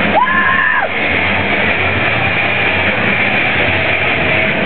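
Hockey arena crowd noise with music over the arena's sound system, loud and steady. In the first second a brief high tone rises, holds and falls.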